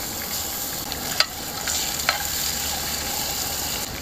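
Stir-frying in a pan over a wood fire: a steady sizzle while a spatula stirs the food, with two sharp clacks about a second apart.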